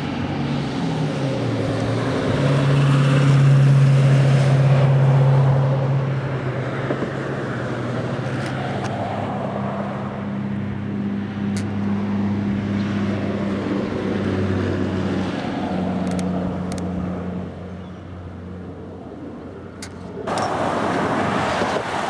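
A motor vehicle engine running with a steady low hum, loudest a few seconds in and easing off later. About two seconds before the end it cuts abruptly to a broader rushing noise of river water and road traffic.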